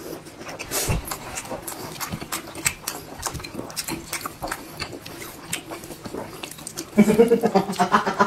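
Close-miked chewing and lip smacking of people eating, a steady run of short wet clicks and smacks. A person's voice joins near the end.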